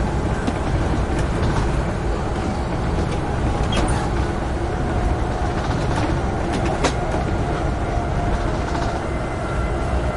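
Amtrak Northeast Regional passenger train running at speed: a steady rumble of wheels on rail, with a few sharp clicks about four, six and seven seconds in.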